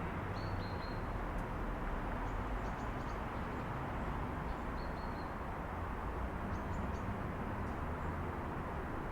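Steady rumble of distant city traffic coming through an open window, with small birds chirping faintly a few times over it.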